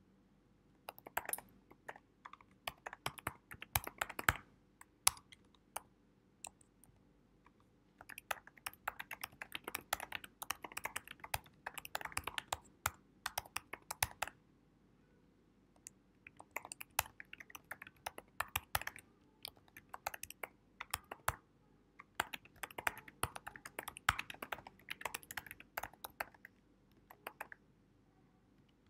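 Typing on a computer keyboard: runs of quick key clicks broken by a few short pauses.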